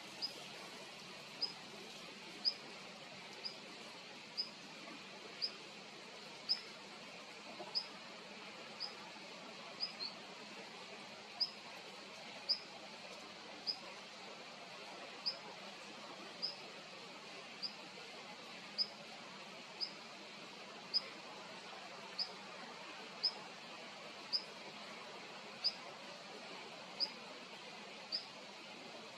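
Siberian long-tailed rosefinch calling: short, high single notes repeated steadily about once a second, over a faint steady hiss.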